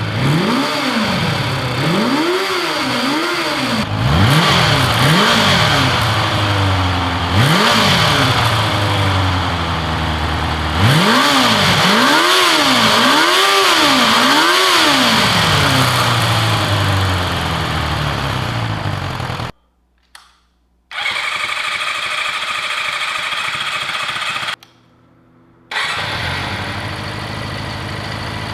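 Kawasaki Zephyr's air-cooled inline-four motorcycle engine being revved in a run of quick throttle blips, each rev rising and falling, then settling to a steady idle. The sound drops out abruptly twice for about a second.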